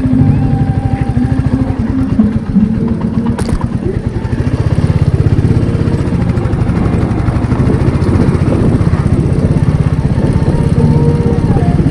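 Motorcycle engine running under way, with a steady, even exhaust beat. A single sharp click comes about three and a half seconds in.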